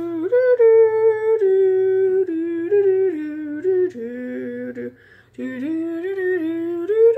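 A young person humming a wordless tune in held notes that step up and down in pitch, with a brief pause about five seconds in.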